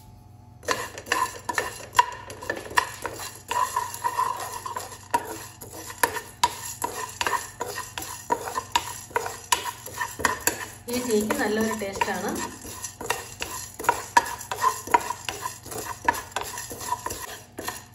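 A spatula stirring whole coriander seeds, black peppercorns and cumin as they dry-roast in a nonstick pan: a busy, irregular run of rattling clicks and scrapes as the seeds are pushed across the pan, starting just under a second in.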